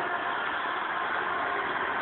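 Homemade RC model combine harvester's small electric motors and gearing running steadily, an even whirring hum with faint steady tones.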